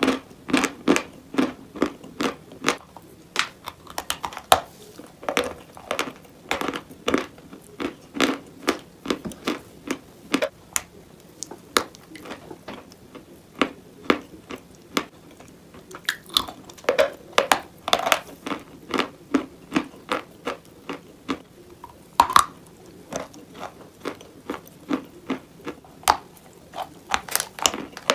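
Close-miked crunching of a person biting and chewing pieces of chalk bowl, many sharp, irregular crunches a few times a second.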